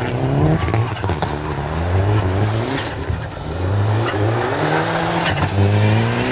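Mitsubishi Lancer Evolution rally car's turbocharged four-cylinder engine accelerating hard on gravel. The revs climb in several rises, each cut by a drop at a gear change.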